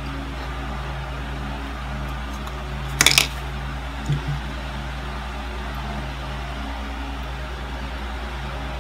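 A person takes a quick noisy sip from a cup about three seconds in, followed by a short low swallow. A steady low hum runs underneath.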